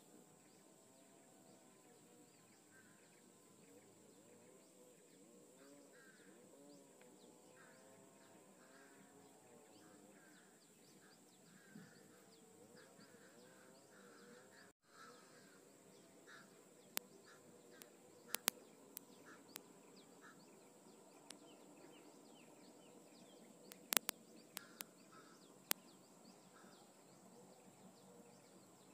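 Faint river-forest ambience with distant birds calling in wavering, rising-and-falling notes, over a steady high hum. In the second half come a few sharp, isolated clicks.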